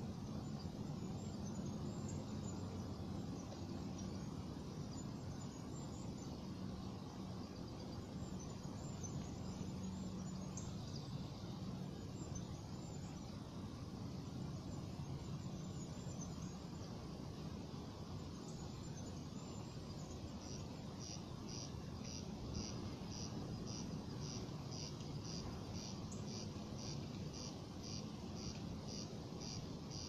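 Outdoor ambience: a steady low rumble with faint, scattered high chirps. About two-thirds of the way through, a high chirp starts repeating evenly about twice a second.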